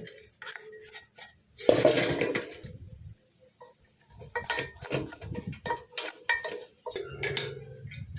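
Metal tools and gearbox parts clinking and knocking against each other: a louder clatter about two seconds in, then a run of lighter taps.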